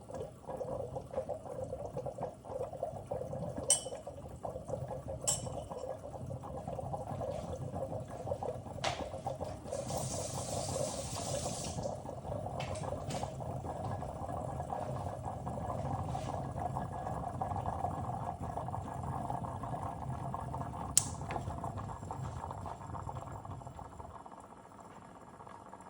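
Glass siphon coffee maker bubbling steadily as the heated water circulates in the upper chamber. There are a few sharp glassy clicks and a brief hiss about ten seconds in, and the bubbling fades out near the end.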